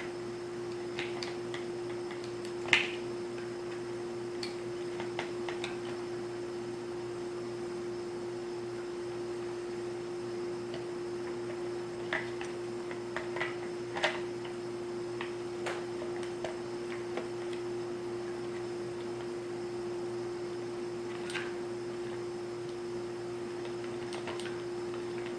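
Scattered light clicks and taps of hard plastic chainsaw housing parts being handled and fitted together, over a steady electrical hum.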